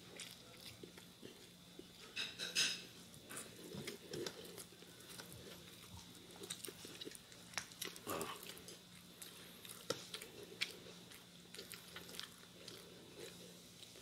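Close mouth sounds of a person eating roast chicken with his hands: chewing with scattered small wet smacks and clicks, the loudest cluster about two and a half seconds in.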